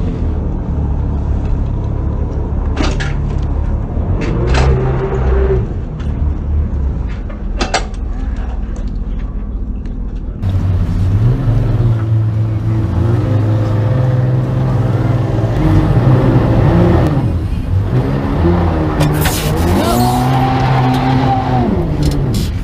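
Motorboat engine running as the boat is driven forward onto its trailer, revving up and down several times in the second half as the driver powers it onto the bunks.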